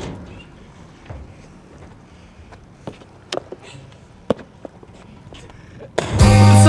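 A few scattered sharp knocks and scuffs of feet and hands on a metal utility cabinet as a person climbs up and stands on it. About six seconds in, loud hip-hop music with a heavy bass cuts in.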